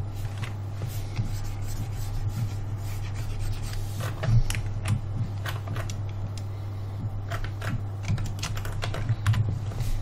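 Irregular clicks of a computer keyboard and mouse being worked, over a steady low electrical hum.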